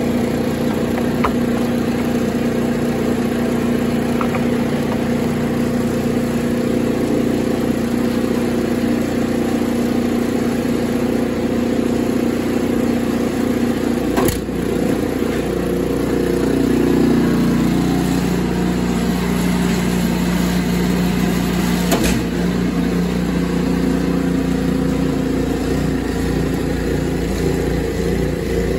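Gas two-stage snowblower engine running steadily. About halfway through, after a clunk, its note changes as the blower is put to work throwing snow.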